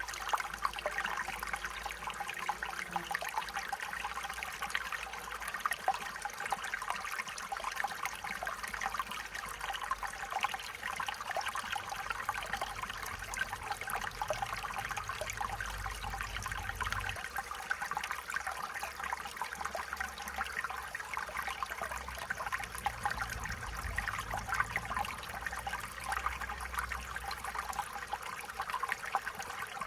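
Stream water trickling and babbling steadily over stones, with a dense crackle of small splashes.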